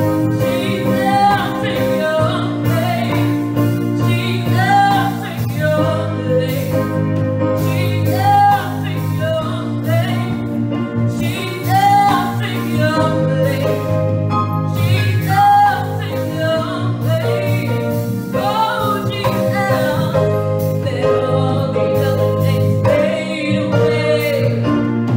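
A woman singing a slow gospel song with sustained, wavering held notes over steady instrumental accompaniment.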